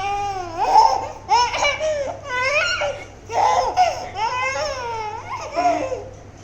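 A baby laughing in a string of short, high-pitched bursts that fade out near the end.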